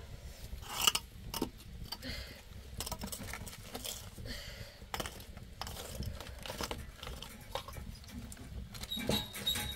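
Wood fire crackling in an open stone hearth: irregular sharp pops and snaps, a louder pop about a second in, over a low steady rumble.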